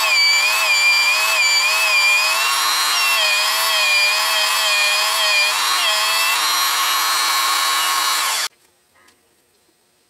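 Electric hand drill running under load, drilling a screw hole in metal: a steady motor whine whose pitch wavers slightly as the bit bites. It cuts off abruptly about eight and a half seconds in.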